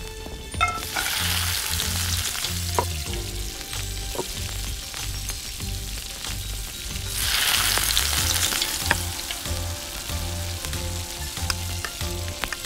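Cumin seeds dropped into hot oil in a miniature iron wok set off a burst of sizzling about a second in. Chopped onion poured in about seven seconds in brings a second, louder burst. Near the end a small spatula stirs and clicks against the pan as the frying goes on.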